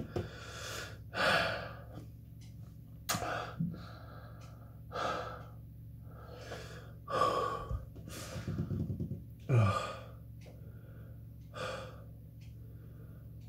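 A man breathing hard in repeated gasps, one every second or two, with a low groan falling in pitch late on: breathing through the burn and stomach cramps after chugging extreme hot sauce.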